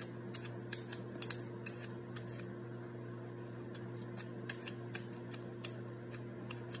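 Hand vegetable peeler scraping strips off a carrot in quick, irregular strokes, each a short crisp scrape, with a pause of about a second midway. A faint steady hum runs underneath.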